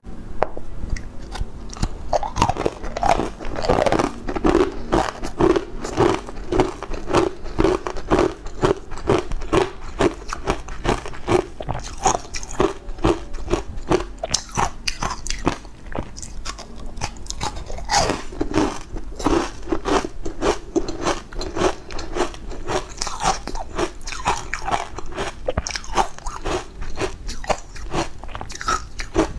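Close-up crunching and chewing of green powder-coated ice cubes: dense, sharp crackly crunches as the ice breaks between the teeth, with runs of steady rhythmic chewing.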